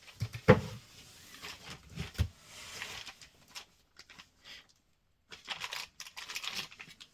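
Parts and packaging being handled: two sharp knocks as items are set down, then spells of plastic packaging rustling.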